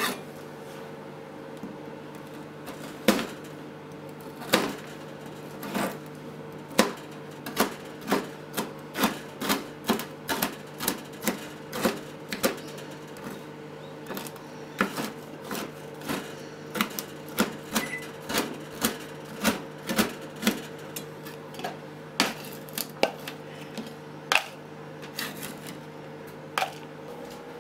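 Kitchen knife chopping a block of curry roux on a plastic cutting board: sharp taps of the blade on the board, a few at first, then about two a second. A steady low hum runs underneath.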